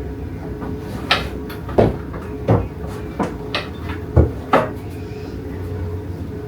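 A run of about eight irregular knocks and clunks over a few seconds, as a person climbs into a small go-kart with a rusted frame and a fiberglass body. A steady low hum sits underneath.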